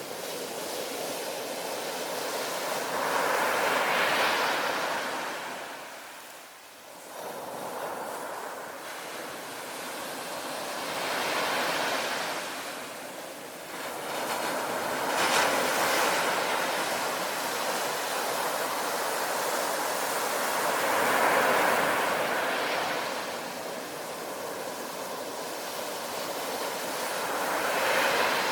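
Ocean surf: about five waves break in turn, each a rush of noise that swells and falls back over a few seconds.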